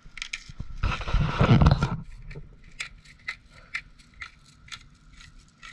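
Pepper mill grinding black pepper, a row of sharp clicks about two a second. About a second in, a loud rushing noise lasts for about a second.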